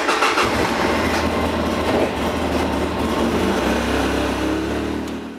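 Polaris RZR side-by-side engine running with a freshly fitted Dalton clutch kit, as the machine heads off for a test. Its tone drops lower about three seconds in.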